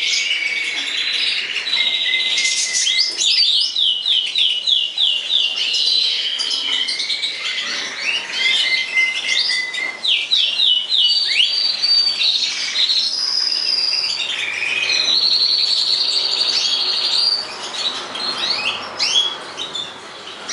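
Caged European goldfinches of the large 'major' race singing: a continuous high, twittering song with runs of rapid repeated notes and trills.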